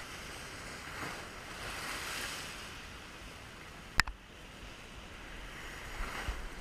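Ocean surf washing and surging around rocks, swelling twice, with a single sharp click about four seconds in.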